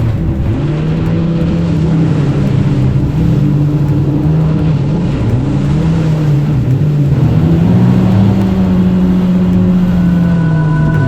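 Motorcycle engine running at road speed, its pitch rising and falling with the throttle over a steady rush of wind and road noise.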